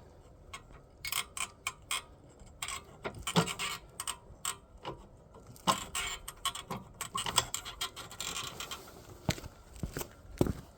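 Tire bead and rubber creaking and clicking irregularly as the car's weight slowly forces the bead off the rim, with sharp ticks and a few louder knocks.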